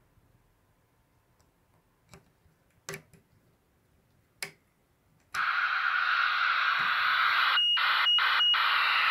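A few sharp handling clicks, then from the middle on a loud steady FM radio receiver hiss from the PRC-77 handset, cut out three times in quick succession near the end, each time with a short high beep.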